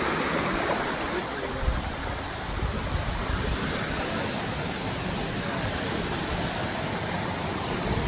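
A small stream of water cascading through a narrow rock channel, making a steady rushing and splashing.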